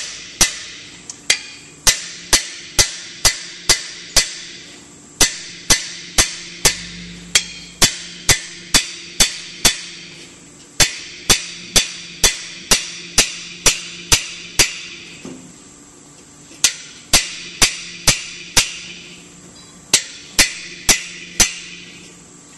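Hammer blows on a cam bearing installer's driver bar, about two a second in runs with short pauses, each ringing briefly, driving the number two cam bearing into its bore in an Oldsmobile 400 engine block.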